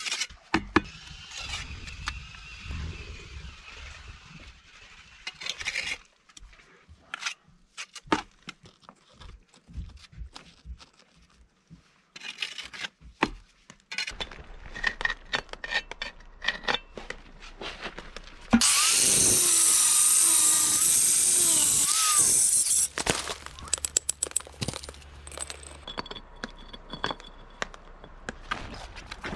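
Handheld power saw cutting stone: about 18 seconds in it runs loud for some four seconds, its pitch dipping as the blade bites. Around it are scattered knocks and clicks of stones being handled and tapped.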